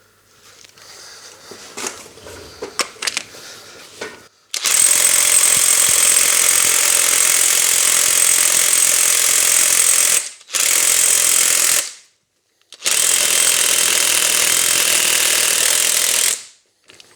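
A few light handling clicks, then a Parkside 20 V cordless impact wrench hammering on a bolt in three loud runs: a long one of about six seconds and two shorter ones after brief stops. The bolt, tightened hard with a breaker bar, does not come loose: too hard for the wrench.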